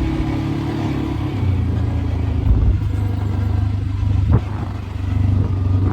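Quad (ATV) engine running, its pitch dropping about a second and a half in as it eases off, with a single sharp knock a little past four seconds in.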